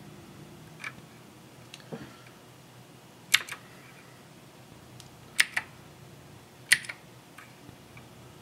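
Keys clicking on a Tandy Color Computer 3 keyboard: a handful of separate presses, the three loudest each a quick double click, about three and a half, five and a half and seven seconds in.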